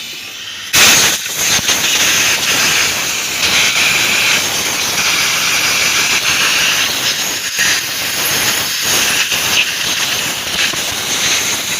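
Compressed-air blow gun hissing as it blasts dirt out of the injector wells on a four-cylinder diesel engine, clearing them before the injectors are pulled. The hiss starts abruptly about a second in and runs on loud and steady, with a few brief dips as the nozzle moves.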